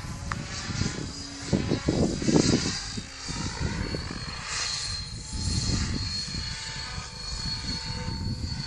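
Electric Mikado Logo 800 Xxtreme RC helicopter flying high overhead: a steady, thin, high-pitched whine from its motor and rotors. Uneven low rumbling gusts, loudest about two seconds in, run underneath.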